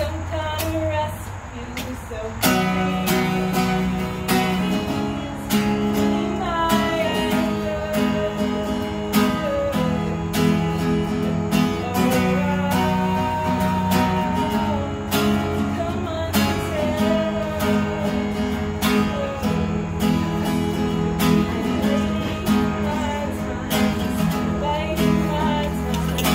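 A woman singing while strumming a steel-string acoustic guitar, performed live. The strumming becomes fuller and steady about two seconds in, with her voice carrying the melody over it.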